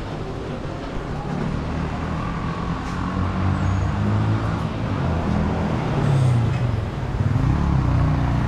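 Road traffic: motor vehicle engines running steadily, growing louder and rising and falling in pitch from about three seconds in, with some voices mixed in.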